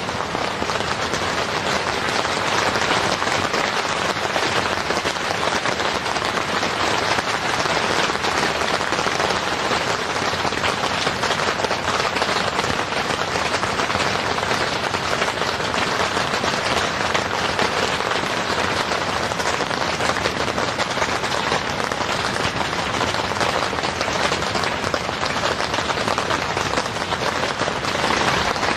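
Heavy rain falling steadily on a tent's fabric, a dense, even patter with no let-up.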